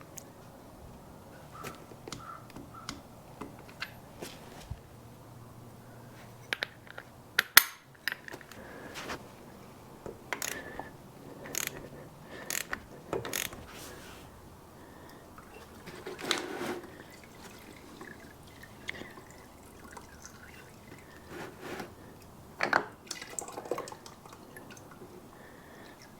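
Scattered clicks, taps and clanks of hand tools and parts being handled during a motorcycle oil change, with one sharp click about seven and a half seconds in.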